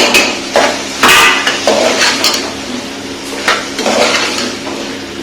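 A metal spoon stirring vegetables and spice powder in an aluminium pressure cooker, with irregular knocks, clinks and scrapes against the pot, the loudest about a second in.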